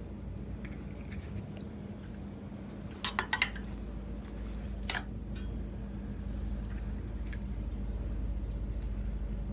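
Small metal clinks from clothes on display being handled: a quick cluster about three seconds in and a single clink about five seconds in, over a steady low hum and the rumble of the phone being handled.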